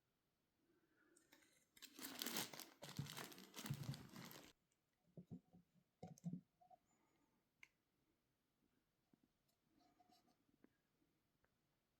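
Packaging being torn and crumpled for about two and a half seconds, followed by a few light knocks.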